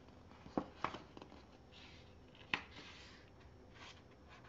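Paper rustling and a few soft clicks as a page of a picture book is handled and turned, the sharpest click coming about two and a half seconds in.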